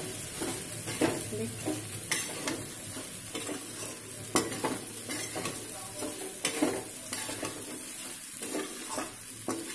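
A metal spoon stirring sabudana khichdi (soaked sago pearls, potato pieces and peanuts) around a metal kadhai, with irregular scrapes and knocks of the spoon against the pan over a light sizzle of frying.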